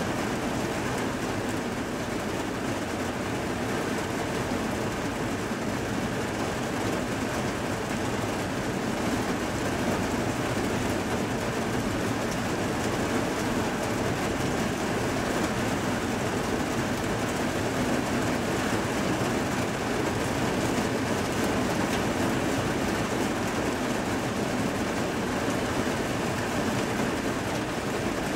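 Heavy thunderstorm rain pouring steadily, an even rushing noise that holds at the same level throughout.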